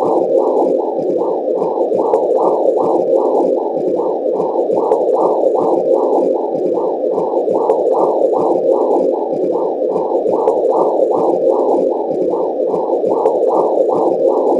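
Womb sound: a steady low whooshing noise that pulses evenly, about two to three swells a second, like blood flow with a heartbeat rhythm.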